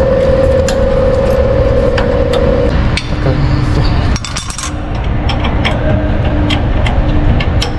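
Metal tools clinking and ticking against the nuts and bolts of a roller coaster car's undercarriage, many sharp ticks throughout. A loud steady hum underneath stops about two and a half seconds in.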